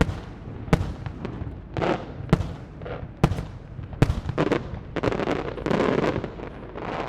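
Aerial fireworks shells bursting in quick succession: sharp bangs roughly every half second to second, with crackling between them that thickens into a dense spell about five seconds in.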